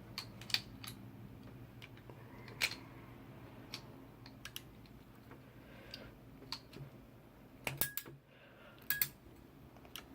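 Scattered sharp clicks and small snaps of a crimping tool pressing an RJ45 plug onto the end of a Cat5 cable, with a louder cluster of clicks near the end.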